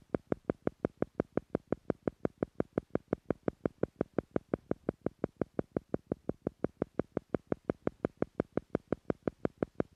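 Theta-frequency pulse track: short, even beeping pulses at about five a second, steady and unchanging, meant to slow brain waves toward the theta level.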